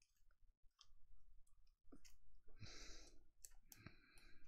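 Faint clicks and soft rustling as a trading card is handled and slid into a clear plastic penny sleeve.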